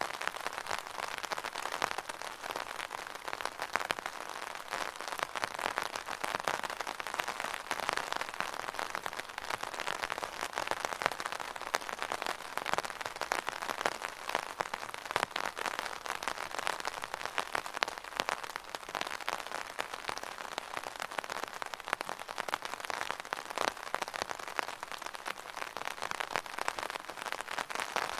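Rain pattering steadily on an umbrella canopy, a dense and even patter of many small drop impacts.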